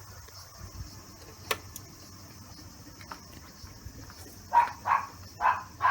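A dog barks four times in quick succession near the end, over a steady high-pitched chirring of insects. A single sharp click comes about a second and a half in.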